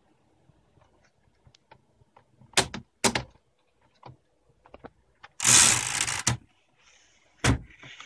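Mechanical noises from a portable typewriter's carriage and platen being worked: a few sharp clacks, a rasping mechanical run about a second long midway, and another clack near the end, with small clicks in between.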